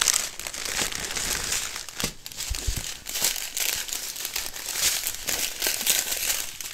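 Clear plastic packaging crinkling and crackling as hands handle and unwrap a strip of small sealed bags of diamond-painting drills, with many quick sharp crackles throughout.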